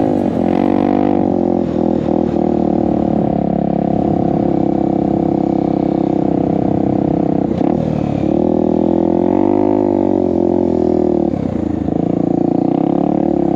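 Honda Tornado dual-sport motorcycle's single-cylinder four-stroke engine running at steady revs while riding through sand, the revs rising and falling a little along the way.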